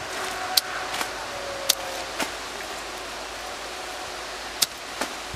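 Sharp, separate snaps of a sickle cutting and trimming the thick stalks and leaves of a harvested cauliflower, about six cuts, over a steady background hiss.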